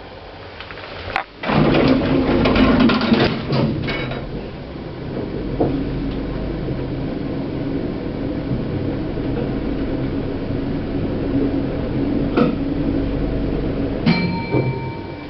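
Old Platt Schindler passenger lift: a click, then a burst of clattering and clunking from the doors and machinery, followed by the car travelling with a steady low hum. Near the end there is a single clunk and then a steady ringing tone.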